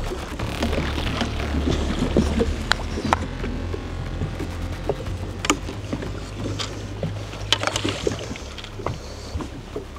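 Small fishing boat on the water: a steady low rumble with scattered sharp clicks and knocks of gear being handled.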